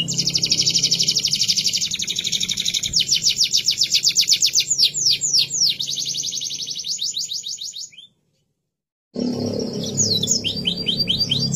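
Domestic canary singing: a fast rolling trill of rapidly repeated high, downward-sweeping notes that changes to slower repeated notes. It cuts off suddenly about eight seconds in for a second of dead silence, then the trill starts again.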